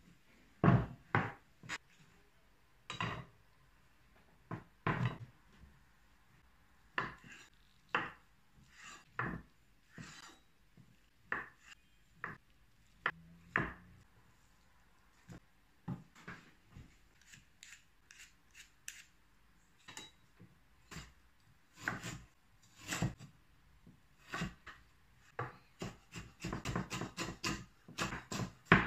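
Chef's knife cutting tofu on a wooden cutting board: single knocks of the blade on the board, a second or more apart. The strokes come faster about two-thirds of the way through, turning into quick, dense chopping near the end as something is finely diced.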